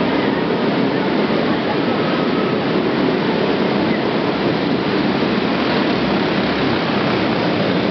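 Engines of trophy karts racing on a dirt track, heard as a steady, dense wash of noise with no clear revs or pitch changes.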